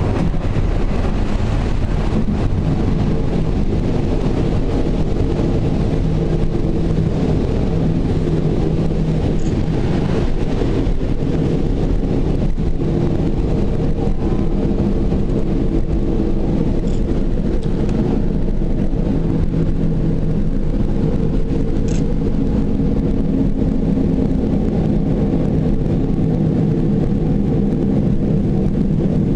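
Passenger train running along the line, heard from aboard: a steady rumble of wheels and carriage with a low, even droning tone, and a few faint ticks.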